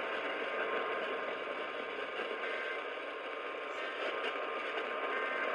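Steady radio static: an even hiss of channel noise from a radio receiver, with no voice coming through.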